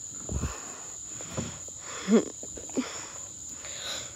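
Steady high-pitched trill of crickets, with a few thumps and knocks from a climber's hands and feet on a plywood climbing wall, the loudest about two seconds in.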